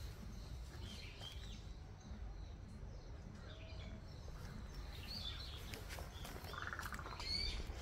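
Wild birds calling in woodland: scattered short chirps and tweets, with a quick rapid trill about six and a half seconds in, over a steady low rumble.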